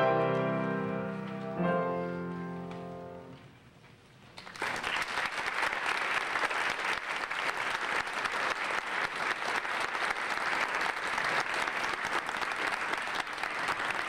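Grand piano played four-hands sounds two final chords, about two seconds apart, that ring and die away. About four and a half seconds in, an audience begins steady applause.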